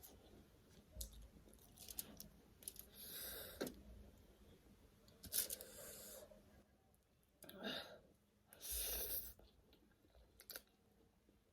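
Close-miked eating sounds of a person eating spicy noodles: chewing and mouth noises in several short bursts a few seconds apart.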